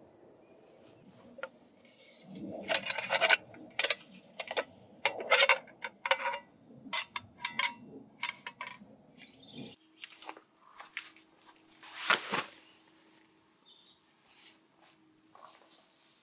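Gear being handled close up: a quick run of rustles, scrapes and light clinks, which thins out after about ten seconds. One louder sharp scrape comes a little past the twelve-second mark, and soft rustling follows.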